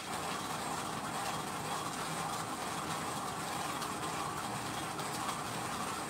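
1ZPRESSO K-Plus hand coffee grinder grinding a 15 g dose of beans as its crank is turned, a steady, even grinding noise.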